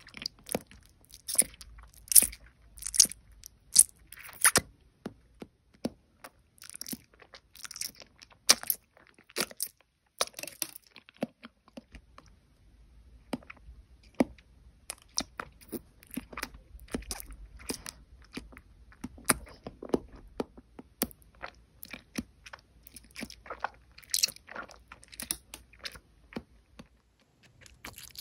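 Close-miked eating sounds of firm jelly candies being bitten and chewed: irregular sharp, crisp crunching clicks, some quite loud, with a short lull about eleven seconds in.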